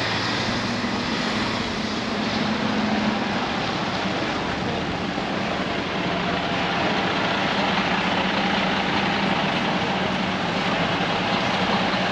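Steady running noise of a moving vehicle, with a constant low hum under an even rushing noise.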